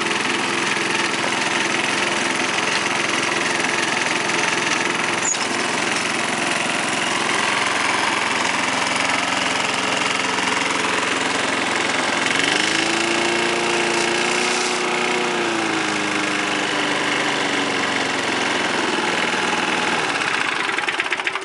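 Briggs & Stratton vertical-pull-start engine on a Masport rear-roller lawnmower running steadily. About twelve seconds in its pitch rises, holds for a few seconds and falls back. The engine cuts out at the very end.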